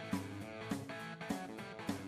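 Background music: guitar-led, with a steady beat.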